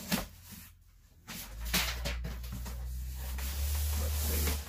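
Large corrugated cardboard shipping box being handled and its flaps pulled open: a few knocks at first, then from about a second and a half in a steady scraping and rubbing of cardboard with a low rumble, which stops suddenly near the end.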